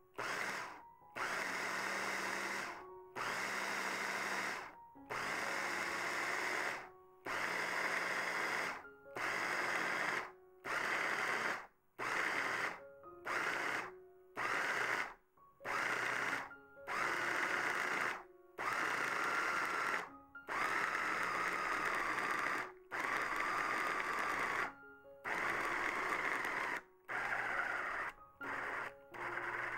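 A small electric kitchen motor running in short bursts, starting and stopping about fifteen times.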